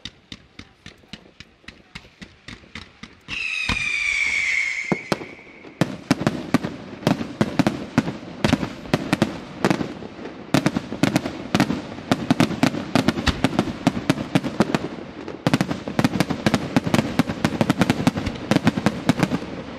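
Fireworks display: a quick run of small pops as comets rise, then a loud whistle of about two seconds that sinks slightly in pitch, then from about six seconds in a dense, rapid barrage of bangs, several a second, as aerial shells burst overhead.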